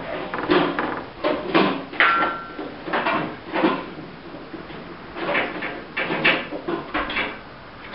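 Irregular knocks and clunks of metal parts and tools being handled, with a short squeak about two seconds in.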